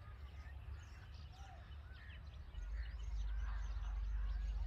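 Red-vented bulbuls chirping, many short, quick call notes, over a low rumble that gets louder about halfway through.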